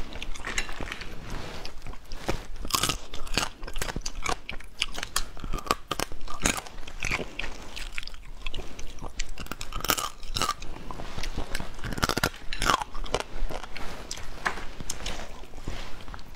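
Close-miked chewing and biting on cooked crab, with many sharp, irregular crunches.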